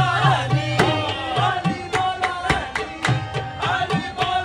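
Live music: a man singing with hand-drum (tabla-style) strokes keeping a steady beat and one note held steadily beneath.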